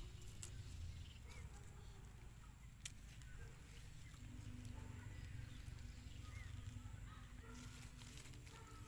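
Faint outdoor ambience: a low steady rumble with a few light clicks and small chirps, and a faint steady hum for a few seconds around the middle.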